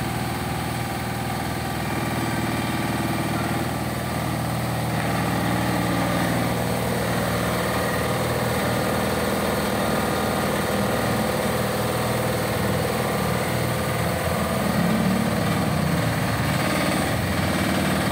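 Tigon TE-10 HD 1-ton mini excavator's small diesel engine running steadily as the machine is worked, a little louder from about five seconds in and swelling briefly near the end.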